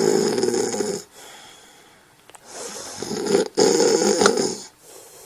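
Snoring: one snore fades out about a second in, then after a quieter breath a second snore rises in two parts with a brief break between them, ending well before the end.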